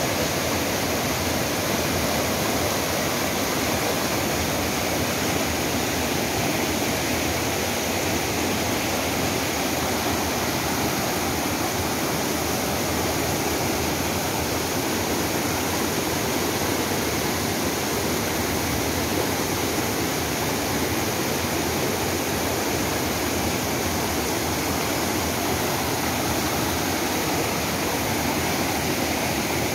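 River in flood after heavy rain, fast muddy water rushing over rocks with a steady, unbroken sound.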